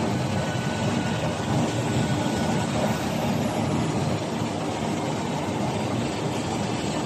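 1000 mm high-speed flexo printing press running at production speed: a steady, even mechanical running noise with no separate knocks or strokes.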